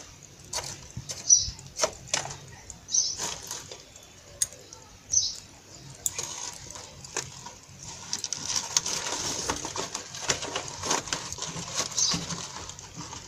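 Scattered clinks and knocks of a metal spoon against a metal cooking pot, then from about six seconds in a denser run of scraping and clicking as the cooking sweet potato leaves (matembele) are stirred in the pot.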